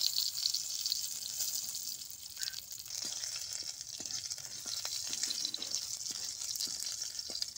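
Curry leaves sizzling in hot oil in a metal kadhai, loudest at the start as they hit the oil and then frying steadily, with light ticks of a ladle stirring in the pan.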